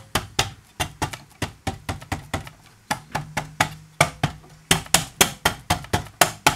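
Rapid, regular sharp clicks, about four a second, from hand work refitting the cover on a Grundig Satellit 3400 radio's drum band selector.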